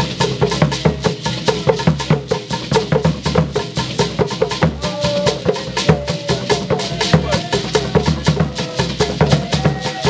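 Hand-shaken gourd rattle with barrel hand drums playing a fast, even rhythm of traditional Akan drumming.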